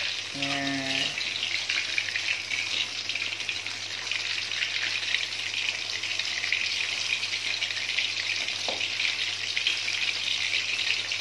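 Battered banana fritters (pisang goreng) sizzling steadily in hot oil in a wok while a metal spatula turns them over.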